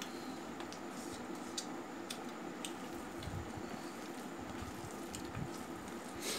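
A lime half squeezed by hand over a plate of rice, its juice dripping, then fingers squishing and mixing rice and chicken curry on a steel plate, with a few sharp little clicks.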